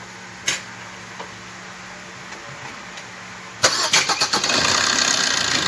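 Maruti Suzuki Ertiga's freshly overhauled diesel engine being cranked by the starter about three and a half seconds in and catching almost at once, then running steadily with no knocking. Before the start there is only a faint steady hum and one click.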